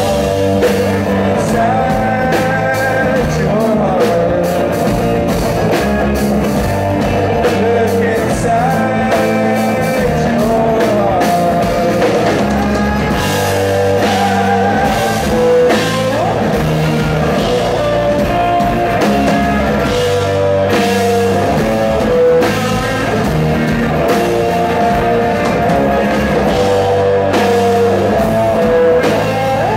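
Live rock band playing: electric and acoustic guitars, bass guitar and drum kit, with a male lead vocal.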